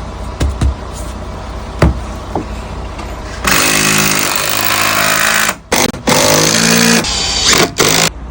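Concrete-pouring equipment at an ICF foundation pour: a steady engine hum with a few sharp knocks, then about three and a half seconds in a loud, harsh mechanical rattle starts, drops out briefly a few times, and stops just before the end.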